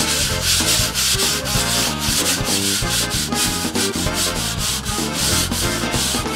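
Hand sanding block scraping back and forth over dried drywall joint compound in quick, even strokes, smoothing the edges of a wall patch.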